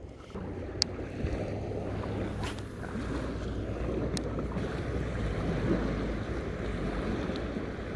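Wind buffeting the microphone: a steady low rumble that swells up just after the start and holds, with a couple of brief sharp clicks about one and four seconds in.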